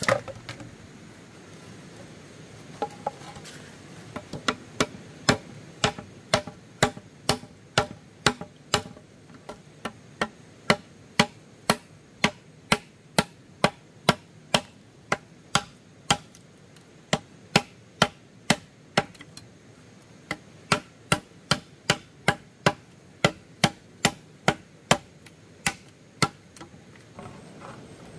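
Sharp, evenly spaced blows from a hand tool, about two a second, starting a few seconds in and stopping near the end, with a short break partway through.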